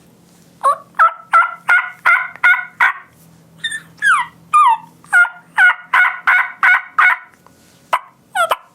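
Turkey diaphragm mouth call imitating a wild turkey hen: a run of about seven yelps at roughly three a second, then three high notes sliding down in pitch like whines, then a second run of yelps, with a few single notes near the end.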